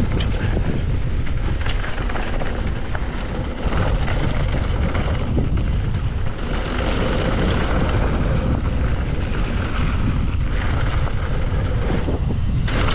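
Mountain bike rolling fast down a dirt trail: wind buffeting the camera microphone over the steady rumble of tyres on the ground.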